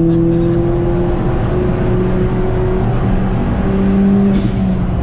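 Ford Fiesta ST's turbocharged 1.6-litre four-cylinder engine pulling hard under full throttle, its pitch climbing slowly, heard from inside the cabin over road and wind noise.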